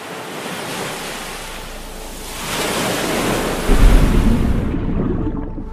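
Sea water rushing and waves washing, swelling partway through with a heavy low rush of water about four seconds in. Near the end the hiss drops away, leaving a muffled low rumble like sound heard underwater.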